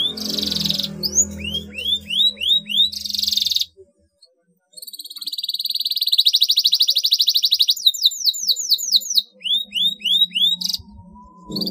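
Domestic canary singing: runs of quick rising chirps and a fast, buzzing trill. The song breaks off for about a second near the four-second mark.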